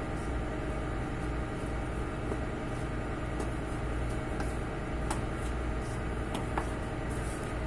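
Steady machinery drone on board a ship: a low rumble with several steady hums layered over it. A few light clicks sound about five and six and a half seconds in.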